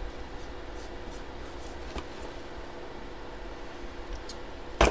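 Faint rubbing and scraping of a card box being handled on a table over a steady low hum, then one sharp knock just before the end.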